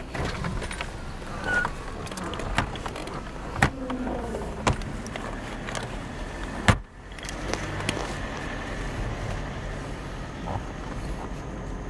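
Patrol car driving on a dirt road, heard from inside the cabin with the windows down: a steady engine and tyre rumble with occasional sharp knocks and rattles.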